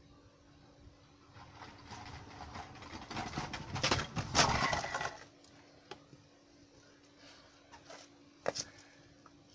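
An electric micro scooter with a bigger motor passes close by on paving slabs, its wheels rattling over the slab joints; the sound swells over a couple of seconds, is loudest about four seconds in, then fades quickly.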